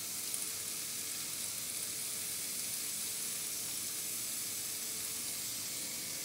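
Steady, even hiss of a pot of boiling water as cooked tapioca is lifted out with a slotted ladle and drained, with one faint clink just after the start.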